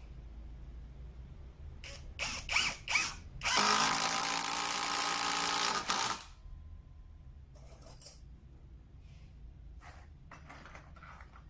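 SfunPro 16V cordless impact driver driving a long screw into a log: two short bursts as the screw is started, then about two and a half seconds of steady running and hammering that cuts off. A few faint clicks follow.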